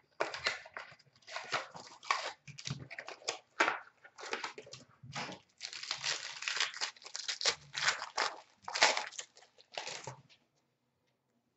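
Hockey card pack wrapper being torn open and crinkled by hand, with the cards slid out of it: irregular rustling and tearing that stops about ten seconds in.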